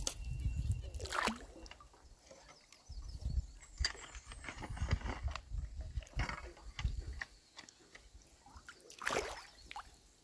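Shallow water sloshing and splashing around wading boots in short, scattered splashes, as a broom handle is jammed down into a beaver-clogged corrugated culvert pipe.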